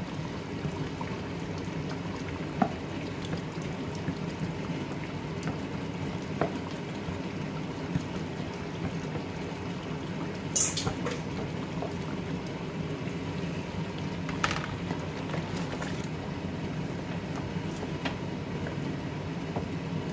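Chicken curry simmering in a large aluminium pot on low heat, a steady bubbling as thick onion-tomato paste is poured in. A few light knocks, and two short, louder hissing noises about halfway and three-quarters of the way in.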